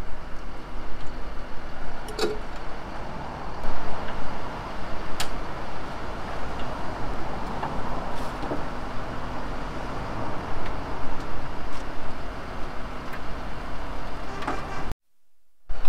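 A heavy machine's engine running steadily, with a few sharp clinks and knocks as a lifting strap and hook are rigged around a car engine. The sound cuts off suddenly about a second before the end.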